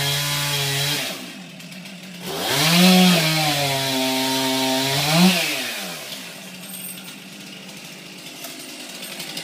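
Two-stroke chainsaw revved twice: each time the pitch rises, holds for a second or two, then falls away. After the second run it drops back to a steady idle about six seconds in.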